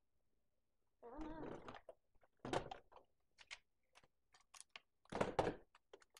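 Small thuds and clicks of toy pieces and packaging being handled and set down on a wooden table, with two louder thuds about two and a half and five seconds in. A short voice sound, like a hum, comes about a second in.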